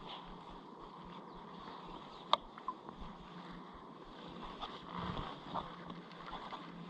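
Faint, steady outdoor ambience of moving water heard from a kayak, with a single sharp knock a little over two seconds in and a few lighter ticks later.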